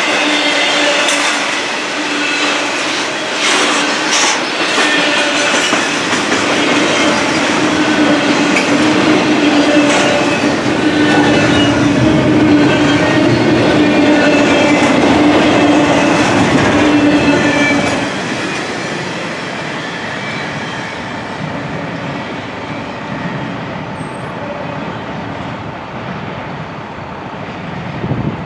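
Double-stack intermodal container cars rolling past close by: a steady rumble of steel wheels on rail, clicks over rail joints and a held whine from the wheels. About eighteen seconds in the sound drops and fades as the end of the train goes by.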